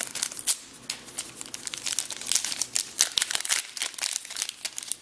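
Crinkling of a cleaning-kit packet being handled and opened, a dense run of irregular crackles.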